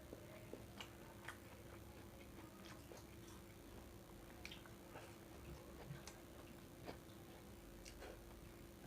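Faint eating sounds: chewing fried rice, with small irregular mouth and utensil clicks, over a low steady hum.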